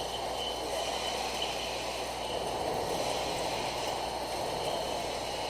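Steady machine noise: a constant hum with a faint high whine, no clear strokes or rhythm.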